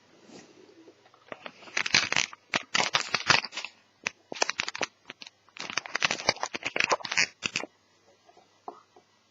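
Hands handling small parts of an Asus EeePC netbook during disassembly. There are dense crackles and clicks in two bursts of a few seconds each, starting about a second in and stopping near the end.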